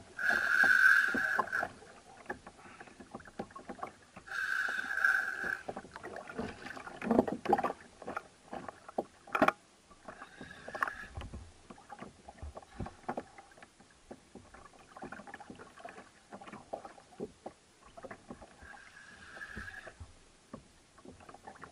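A spinning reel's drag buzzing in short runs of a second or so, three or four times, as a hooked amberjack pulls line off the jigging reel. Between the runs, small knocks and water splashing against the kayak, with one sharper knock near the middle.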